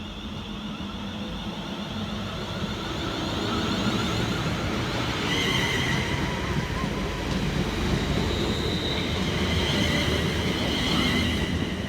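Class 350 Desiro electric multiple unit departing: a low rumble of the train on the track grows louder over the first few seconds, and a high whine sets in about five seconds in as it pulls away.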